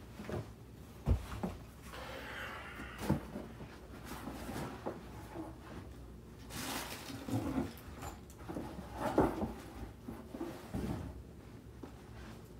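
Scattered knocks, bumps and rustling of someone rummaging through and handling things in a small room, as if fetching a pair of shoes.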